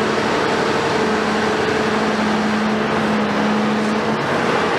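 Cat 374F long-front demolition excavator running with its Cat C15 ACERT diesel engine, a steady loud machine noise with a droning fixed-pitch tone over it that stops about four seconds in.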